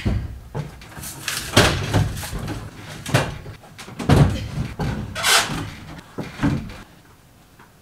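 A wooden kitchen cabinet with its doors removed is being worked up the school bus's entry steps, giving a string of hollow wooden knocks and scrapes. The loudest knocks come in the middle, and it goes quieter near the end.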